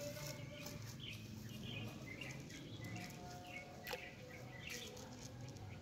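Faint bird chirps, short calls repeating every half second or so, over a low outdoor background rumble, with one sharp click about four seconds in.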